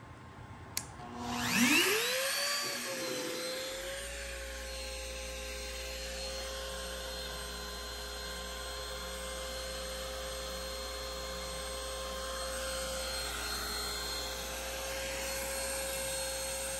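Trim router on a CNC gantry clicked on and spinning up, a rising whine that settles within a couple of seconds into a steady high running pitch. A lower steady hum joins a few seconds in, and the router keeps running as the bit cuts into MDF.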